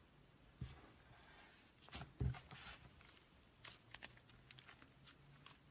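Slime being pressed, squeezed and stretched by hand, giving faint scattered clicks and soft pops, with the loudest pair about two seconds in.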